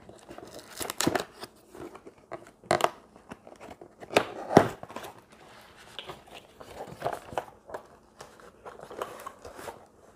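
A paperboard box being opened and unpacked: irregular rustling, scraping and crinkling of cardboard and tissue paper as flaps are pulled and the packed tray is slid out, with sharper knocks about 3 and 4.5 seconds in.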